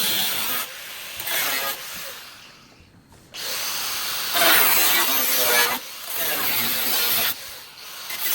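A handheld power tool working in several short runs that start and stop, each lasting one to two and a half seconds.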